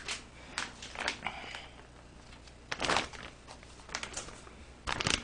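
Plastic packaging rustling and crinkling, with light knocks as things are picked up and handled, in short irregular bursts; the loudest rustle comes about three seconds in.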